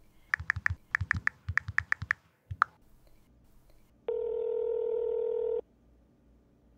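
A phone number being keyed in on a phone: about a dozen quick keypad beeps. About four seconds in, the ringback tone of the outgoing call sounds steadily for about a second and a half.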